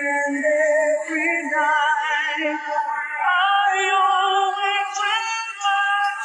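Background pop song with a sung vocal melody over accompaniment.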